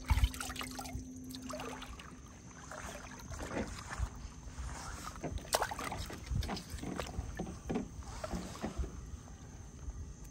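Water sloshing and splashing with irregular handling knocks as hands work in a bucket and at the surface of shallow water, with a sharp thump right at the start.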